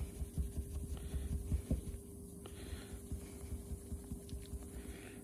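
Fine wire wool rubbing over a small brass clock-winder shaft by hand, in soft scratchy strokes, with low bumps from handling the piece in the first couple of seconds. A steady low hum runs underneath.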